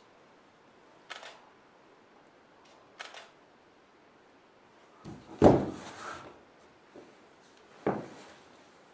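Four dull thuds of a performer's feet and body on a stage floor, roughly two seconds apart. The loudest and deepest comes about halfway through, as he goes down from standing to crouching on the floor.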